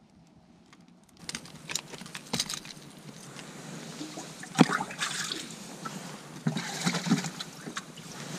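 Water splashing and trickling in a boat's livewell as a speckled trout is put in, starting about a second in, with knocks of handling; a single sharp knock about halfway through is the loudest.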